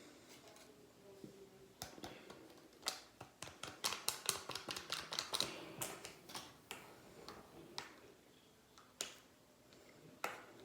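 Slime being squished and worked by hand, giving a run of sharp wet clicks and pops, several a second, thinning out to a few single pops near the end.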